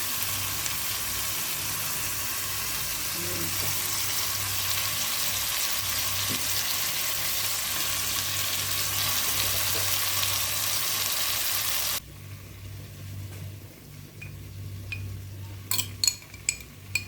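Chicken and garlic sizzling in hot oil in a cooking pan, a steady hiss that stops suddenly about twelve seconds in. After that it is quieter, with several sharp clinks of a utensil against the pan near the end.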